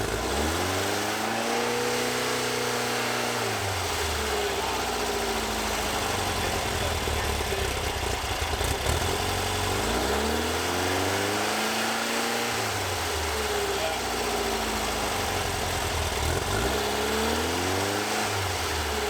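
1964 VW Bus air-cooled flat-four engine, newly installed, revved up and let back down three times, its pitch climbing smoothly and falling away each time, with a steady engine hum between the revs.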